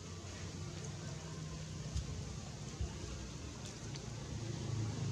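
Steady low background rumble, with two short soft thumps about two and three seconds in.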